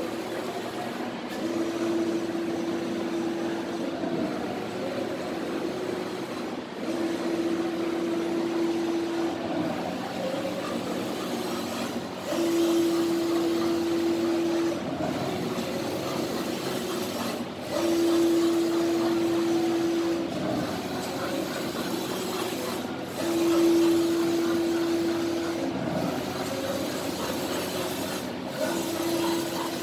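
Flatbed piezo inkjet exposing machine printing: a steady mechanical run with a motor whine about two seconds long that comes back every five to six seconds, as the print carriage makes pass after pass over the screen.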